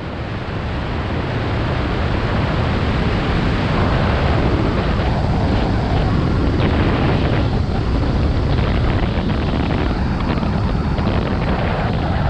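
Light single-engine airplane's engine and propeller running at low power, with wind rushing over a wing-mounted microphone, during the rollout after touchdown and taxi on the runway. A steady, dense noise that builds over the first couple of seconds and then holds even.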